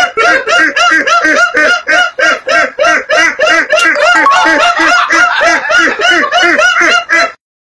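Loud, helpless laughter: a rapid, even string of high-pitched 'ha' pulses at about five a second that cuts off suddenly near the end.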